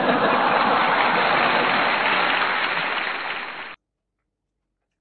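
Applause sound effect: a dense, even clapping that starts abruptly and cuts off suddenly a little under four seconds in.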